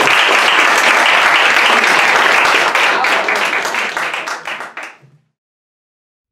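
Audience applauding, the dense clapping thinning to scattered individual claps and dying away about five seconds in.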